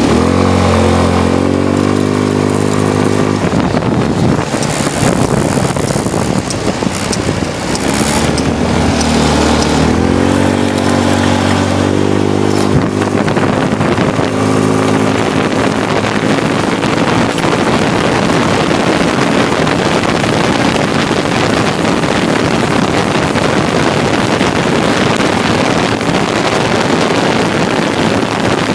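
Small engine running and revving twice, its pitch rising, with heavy wind rushing over the microphone that covers it after about twelve seconds.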